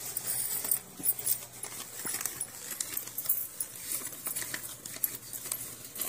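Indian rupee coins clinking as several hands pick them up and stack them on a woven straw mat: a quick, irregular run of small metallic clicks.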